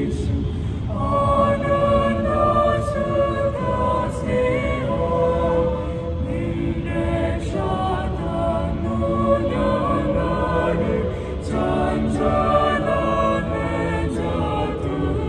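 Small mixed choir singing a hymn a cappella in four-part SATB harmony, holding sustained chords and pausing briefly between phrases.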